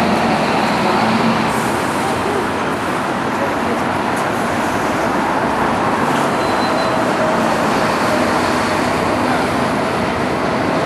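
Busy city-street ambience: a steady wash of road traffic with the voices of passers-by mixed in.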